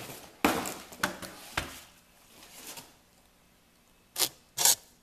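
Cardboard boxes being handled: the tripod's retail box scrapes and knocks against the shipping carton, with a few sharp knocks in the first two seconds. Near the end come two quick cardboard scuffs.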